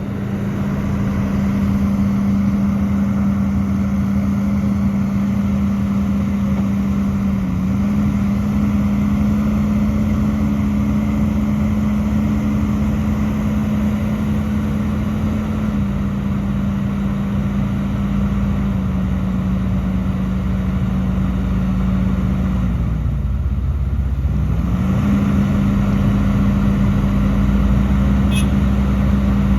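Diesel engine of a Hidromek HMK230LC crawler excavator running at a steady high speed while working. Its note sags briefly several times, most deeply past the middle, then recovers.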